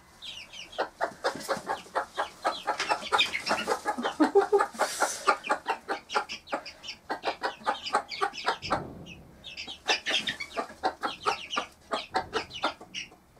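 Cuckoo Marans hen clucking in a fast run of short notes, about five a second: the food call a mother hen makes to bring her chicks to a treat. Her chicks peep high over the clucking. The clucking breaks off about nine seconds in, then starts again.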